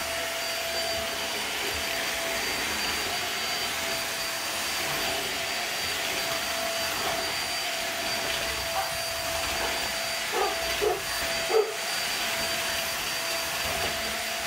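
Upright bagless vacuum cleaner running steadily as it is pushed over a hard floor, its motor giving an even whine over a rush of air. About three-quarters of the way through, a few short, sharp sounds break over it, the last one the loudest.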